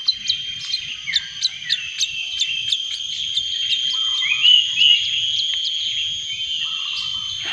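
Small songbird calling: a rapid, even series of short high chirps, about three a second, with a louder call about halfway through, over a steady high insect drone.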